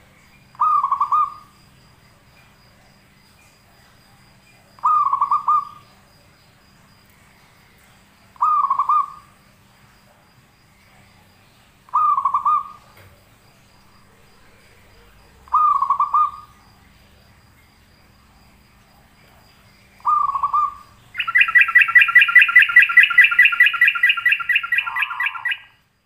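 Caged bulbul calling: a short low note about every four seconds, six in all, then a loud, rapid trilling phrase lasting about four seconds near the end.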